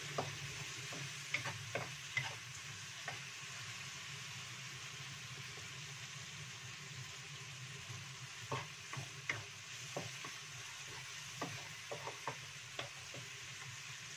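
Chili spice paste with lemongrass and lime leaves sizzling gently as it is slowly sautéed in a nonstick wok. A wooden spatula scrapes and taps against the pan in scattered clusters, a few strokes about a second in and more after about eight seconds.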